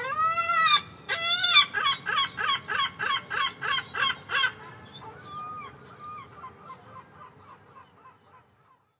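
Gull calling: a few long drawn-out cries, then a fast run of short laughing notes about three a second, trailing off into fainter, scattered calls.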